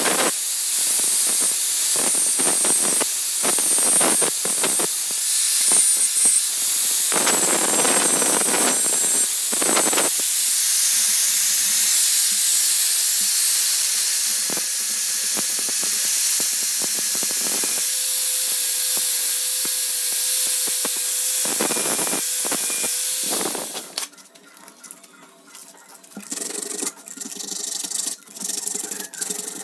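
Electric angle grinder with an abrasive disc running against a brass oil lamp, a loud steady hissing grind. The grinder stops abruptly near the end, leaving quieter irregular hand scrubbing and rubbing on the metal.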